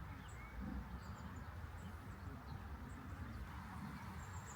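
Outdoor ambience: scattered short, high bird chirps over a steady low rumble.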